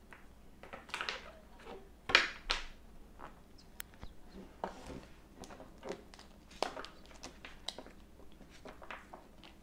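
Tarot and oracle card decks being handled and set down: cards sliding and tapping against each other in a series of short, irregular swishes and clicks, the loudest a pair about two seconds in.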